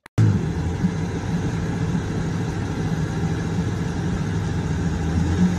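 Pickup truck engine running steadily with a low drone, as a truck stuck in deep mud is pulled out on a tow strap.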